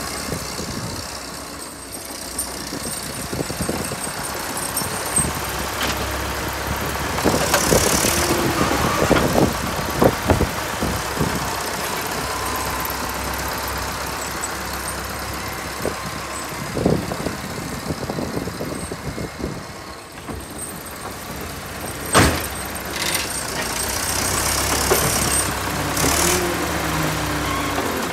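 Diesel engine of an old Volvo BM wheel loader running as it pushes and lifts snow with its front bucket, with several sharp knocks and clanks along the way.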